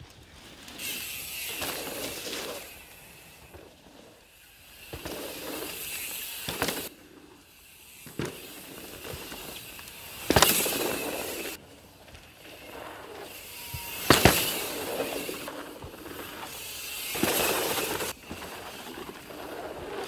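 Enduro mountain bike riding dirt jumps: tyres rolling and scrubbing over dirt, swelling and fading as the bike passes. Several sharp thuds of landings, the loudest a little past halfway and again about seven tenths in.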